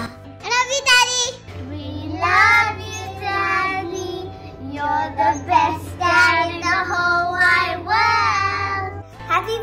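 Children singing a song over a musical backing track.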